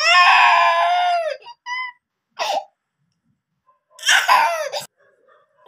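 A toddler crying: a long high-pitched wail, a short sob about two and a half seconds in, and another wail about four seconds in.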